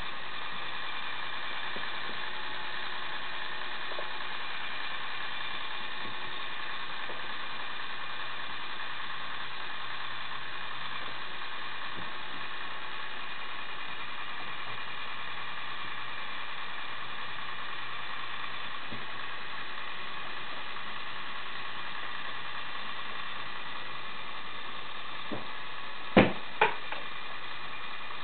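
Lego Technic 42055 bucket wheel excavator's electric motor and gear train whirring steadily. Two sharp clicks come close together near the end.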